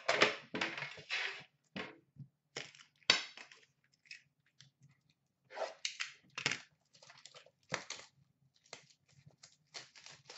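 A sealed hockey card box being unwrapped and opened by hand: plastic wrapping crackling and cardboard rustling and scraping in a run of short, sharp bursts, loudest in the first second or so and again about three seconds in.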